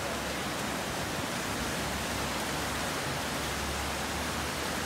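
Fast whitewater rushing steadily, an even, unbroken hiss of moving water.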